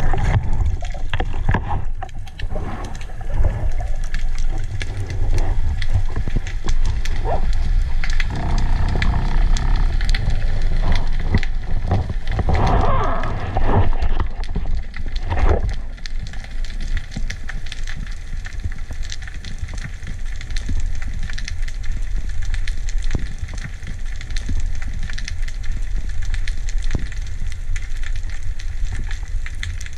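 Underwater ambience heard through a speargun-mounted camera: a steady low rumble with constant fine crackling, and a louder swirling, gurgling stretch between about 8 and 16 seconds in.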